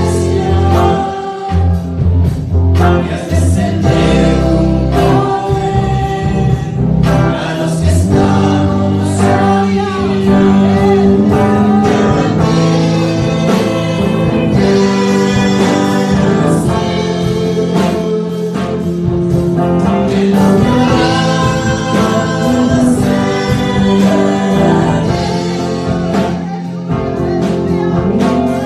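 A girl and a man singing a worship song into microphones over instrumental backing music, with a sustained bass underneath.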